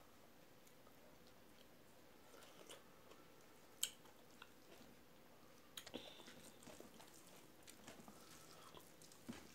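Faint, soft wet eating sounds: fingers mixing rice and curry on a steel plate, with scattered small clicks and a sharper click about four seconds in, over near silence.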